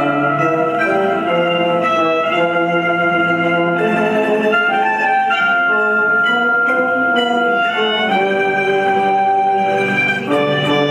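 A live band of acoustic guitars, mandolins, saxophones and an accordion playing an instrumental tune, loud and steady.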